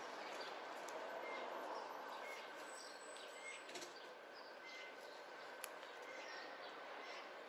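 Quiet outdoor ambience with faint, scattered bird chirps in the background.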